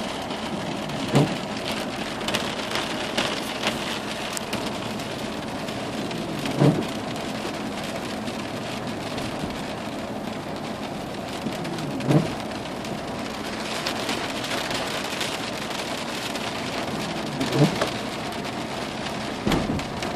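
Steady rain pouring down, an even hiss throughout. A short rising swish recurs about every five and a half seconds, four times.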